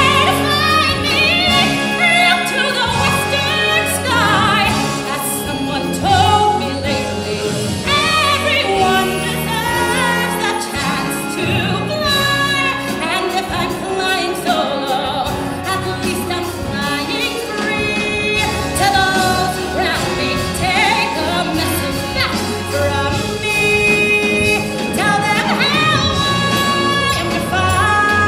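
Live stage-musical song: a woman belting sung lines over a full pit orchestra, heard from the audience in the theatre.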